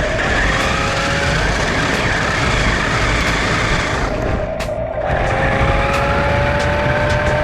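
Toy RC stunt car's small electric drive motors whining under a loud rush of wheel and ground noise, heard from a camera mounted on the car. The whine rises slowly in pitch as the car speeds up, drops briefly about four to five seconds in, then climbs again.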